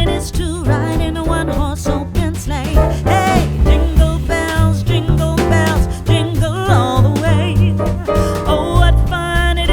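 Background music: a song with a wavering singing voice over a bass line and drums.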